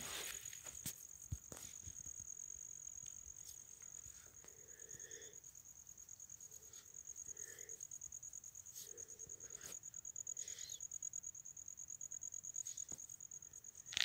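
An insect trilling steadily on one high note with a fast, even pulse, with a few faint light clicks and rustles of plants being handled.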